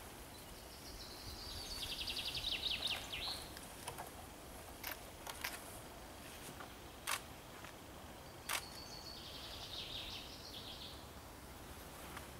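A songbird sings two short, rapid trilled phrases, about two seconds in and again about ten seconds in. Between them come a few sharp clicks of camera shutters, over faint open-air background noise.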